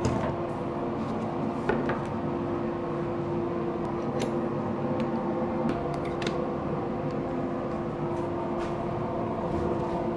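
Woodshop machinery running steadily, a dust extractor with a constant hum, and a few light clicks and taps from wood being handled at several points.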